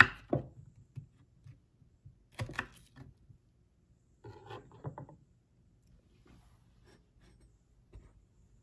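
Knife cutting strawberries on a wooden cutting board: sharp taps of the blade against the board in three short clusters, at the start, about two and a half seconds in and around four to five seconds in, with a light knock near the end.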